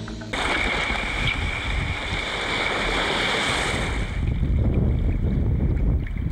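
Choppy sea washing around a kayak with wind blowing on the microphone: an even hiss of wind and water at first, turning about four seconds in to a heavy low rumble of wind buffeting the mic.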